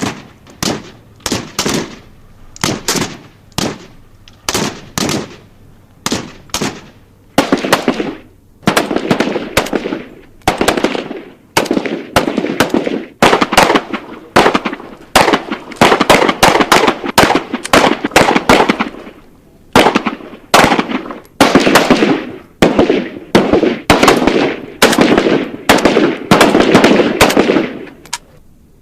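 Gunfire sound effect. For the first several seconds single and double shots come about every half second to a second. After that, runs of rapid automatic fire lasting about a second each, with short pauses between them, continue until near the end.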